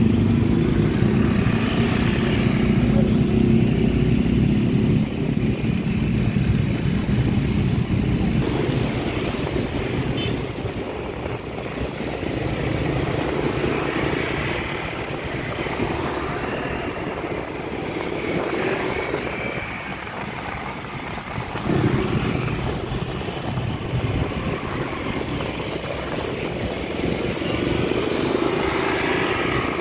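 Motorcycle engine running while riding through street traffic, with wind noise on the microphone. The sound eases off for a stretch in the middle and grows louder again about twenty-two seconds in.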